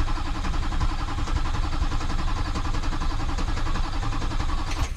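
Diesel truck engine cranking over on its starter with an even, rhythmic chug but not firing, even with fuel bled through to it; the cranking stops abruptly near the end.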